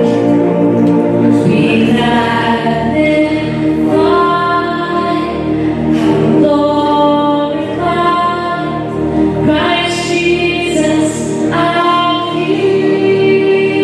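A choir singing slow gospel or church music in long held notes, with musical accompaniment.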